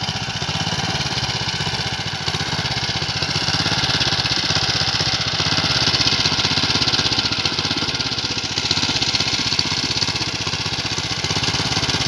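Small single-cylinder petrol engine of a Honda power weeder running steadily as its tines work the soil between crop rows, a little louder for a few seconds in the middle.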